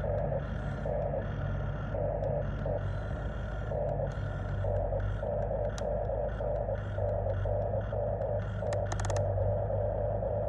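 Electric motors and plastic gearboxes of a radio-controlled construction model whirring in short, stop-start pulses over a steady low hum, with a few sharp clicks and scrapes.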